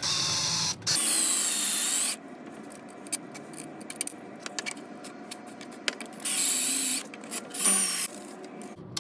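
Countersink bit in a power drill cutting into steel plate in four short bursts of high-pitched cutting noise, each about a second or less, with small clicks and handling noise between them.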